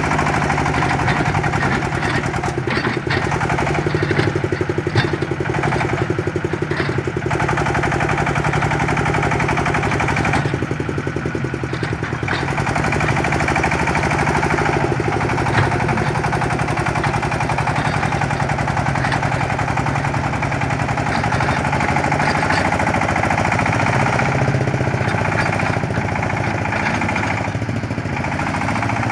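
Engine of a homemade 4x4 ledok hauler on a PS100 truck chassis running steadily as the truck drives slowly over rough dirt, with a fast, even knocking beat.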